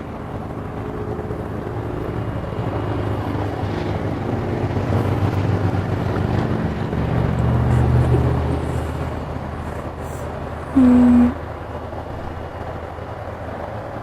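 Thunder rolling: a low rumble that swells over several seconds and then dies away. About eleven seconds in, a short, loud, steady hum-like tone lasts about half a second.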